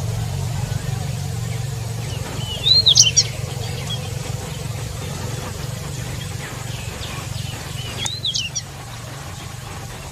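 Pied bushchat singing two short, quick phrases of rising and falling whistled notes, about three seconds in and again near the end, over a steady low hum.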